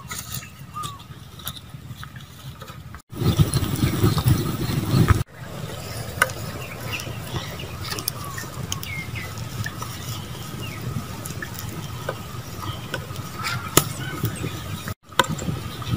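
Small open fire of wood embers crackling and hissing in a ground pit, with scattered sharp snaps. A louder low rumbling noise sits over it for about two seconds, starting about three seconds in.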